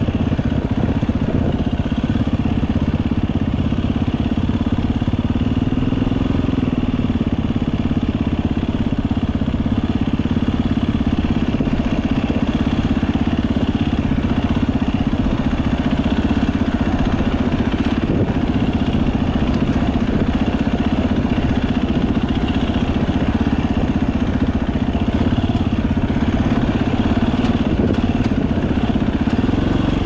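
KTM 250 EXC two-stroke enduro motorcycle engine running under way on a dirt trail, holding a fairly steady note with little change in pitch.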